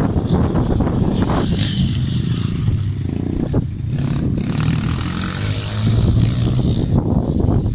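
Small single-cylinder four-stroke pit bike engine revving, its pitch rising and falling as the rider works the throttle round the track, with wind buffeting the microphone.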